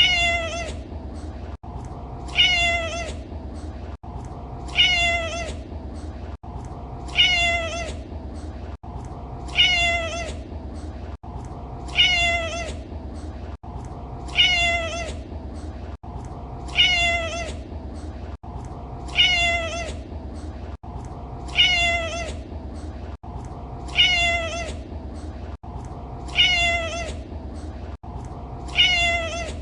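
A domestic cat's meow, the same short call repeated at even spacing about every two and a half seconds as a loop, over a steady low background noise.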